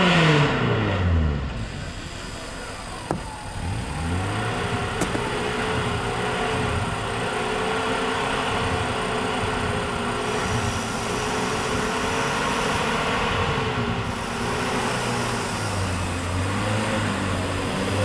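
Off-road 4x4 engine revving: the revs drop away over the first second or so, pick up again about three and a half seconds in, and hold a steady, slightly wavering pitch before rising again near the end.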